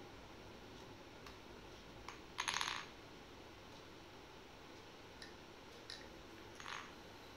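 Light clattering from a child's toy rolling pin and board being handled on a tiled floor: one short rattling clatter about two and a half seconds in, a softer one near the end, and a few faint clicks between.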